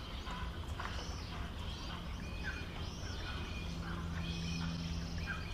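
Several wild birds chirping and calling over one another, in short repeated curved calls. Under them runs a low, steady hum that grows stronger about halfway through.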